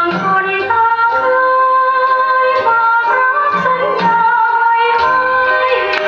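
A recorded song, a singing voice holding wavering notes over instrumental accompaniment, played back through a type 245 triode tube power amplifier and loudspeaker.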